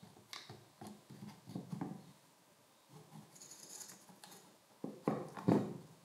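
Light clicks, scrapes and knocks of a rotary hammer drill's metal gear housing and armature being slid by hand into its plastic motor housing, with a couple of louder knocks about five seconds in as the parts come together.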